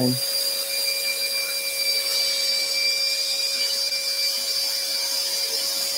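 Workshop dust extractor running with a steady whine and rush of air, over a scroll saw cutting wood; a higher whine joins about a second in.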